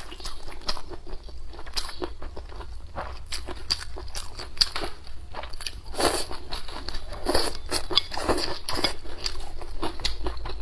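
Close-miked chewing and crunching of mouthfuls of spicy cold kelp-shred salad and rice with boneless chicken feet: irregular crunches and clicks, busiest about halfway through and again a little later.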